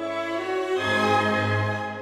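Background music with slow, sustained notes over a deep bass; the chord changes a little under a second in.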